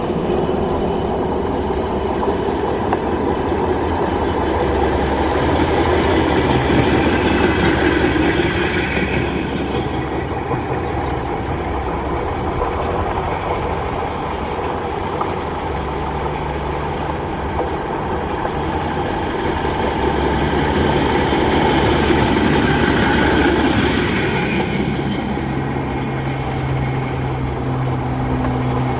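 Motor rail inspection trolleys running along the track one after another, their engines and wheels on the rails making a continuous rumble. It swells twice, about a quarter of the way in and again about three quarters in, as trolleys draw near.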